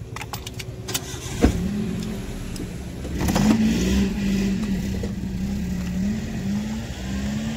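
Three-cylinder petrol engine of a Tata Altroz running, just fitted with NGK iridium spark plugs. A few sharp clicks come in the first second and a half, then a steady engine hum whose pitch wavers and which grows louder about three seconds in.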